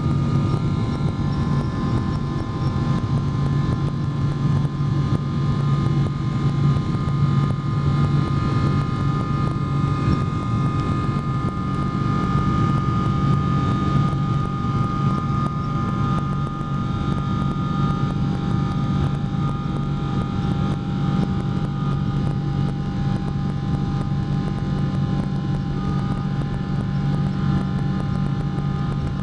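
Boeing 777 jet engines heard from inside the passenger cabin as the airliner moves along the runway: a steady low rumble with a constant engine whine over it.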